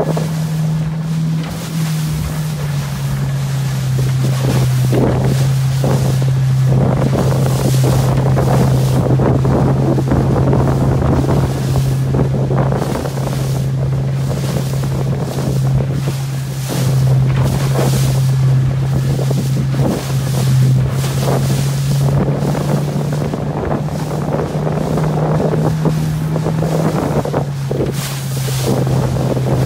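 A motorboat engine running steadily at a low pitch, with wind buffeting the microphone and water rushing past in gusts.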